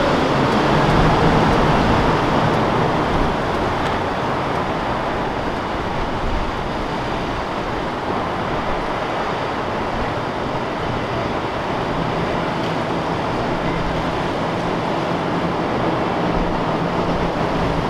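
Outboard motor of a center-console fishing boat running under way, blended with rushing water and wind in a steady wash of noise. A faint low engine hum shows near the start and again in the last few seconds.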